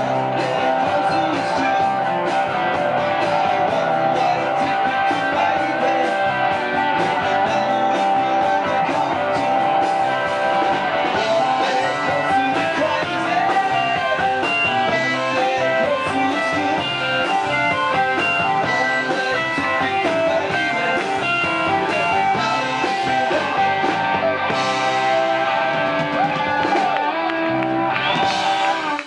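A rock band playing live: electric guitar and bass guitar with drums, and a man singing.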